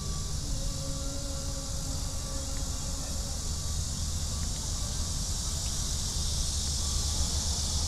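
A steady, high insect chorus, typical of summer cicadas, over a low rumble underneath.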